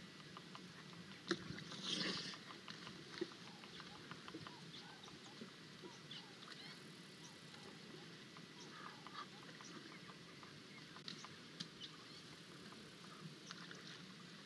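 Young African elephant wallowing in a shallow muddy pool: faint sloshing and small splashes of mud and water, with one louder splash about two seconds in. Scattered faint bird calls.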